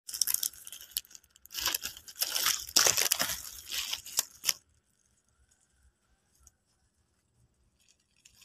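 Plastic packaging crinkling and tearing as it is opened by hand, in irregular bursts that stop about four and a half seconds in.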